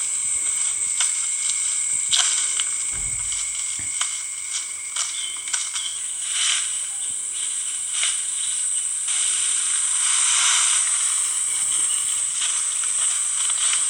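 Insects chirring steadily at a high pitch, with scattered light clicks and knocks and one dull thud about three seconds in.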